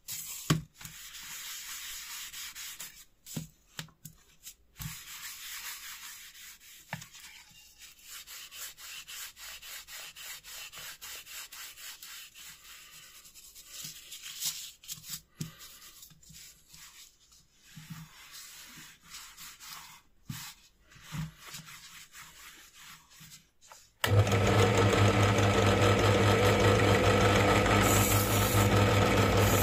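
A cloth rubbing wax into stained wooden parts, with small knocks as the pieces are handled. About 24 seconds in, a much louder electric power tool cuts in and runs steadily with a constant hum, working on a small metal part for rust removal.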